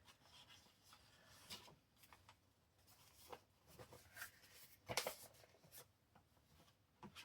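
Faint rustling and light taps of paper and card being handled and pressed down, with a sharper tick about five seconds in.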